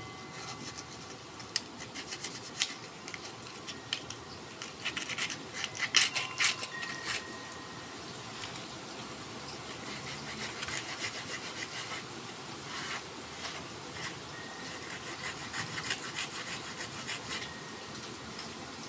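Sandpaper rubbed by hand along a forest red gum didgeridoo: a continuous scratchy rasp of stroke after stroke, with a few sharper, louder scrapes about six seconds in.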